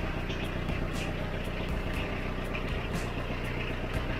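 BCS Victor 400 compact tractor's engine running steadily with the Remet branch logger hitched to it, with light clicks every second or so over the hum.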